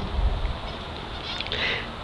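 Wind buffeting the microphone, a low rumble strongest in the first half second, over a steady background hiss. A German Shepherd's bark cuts off right at the start.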